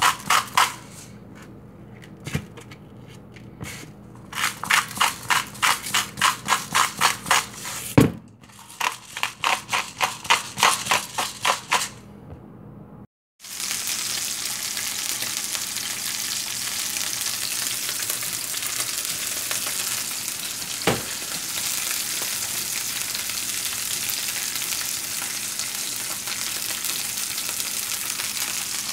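Hand-twisted salt grinder clicking in three quick runs. After a sudden cut, mahi-mahi fillets sizzle steadily in hot oil in a frying pan, with a single knock about two-thirds of the way through.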